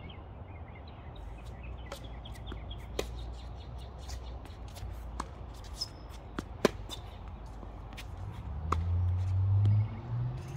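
Tennis rally on a hard court: a series of sharp pops of the ball off racket strings and bouncing on the court, the loudest about six and a half seconds in, with scuffing footsteps. Near the end a low hum swells and rises slightly in pitch.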